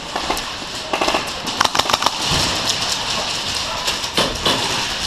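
Airsoft guns firing in short rapid bursts of sharp clicks, about a second and a half in and again around four seconds in, over a steady hiss.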